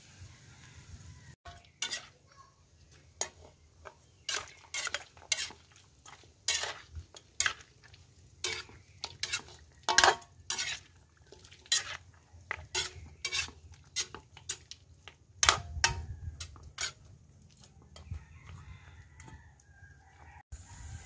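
Metal ladle clinking and scraping against a metal wok as chunks of goat meat in a little liquid are stirred, a sharp clink roughly twice a second that tails off into softer scraping near the end.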